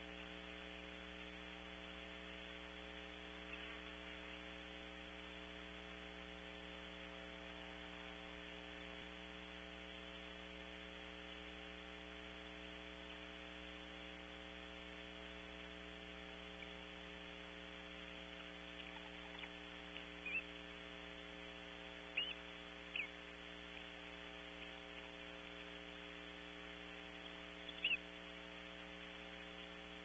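Steady electrical mains hum on the nest camera's audio, with a few brief high chirps about two-thirds of the way through and again near the end.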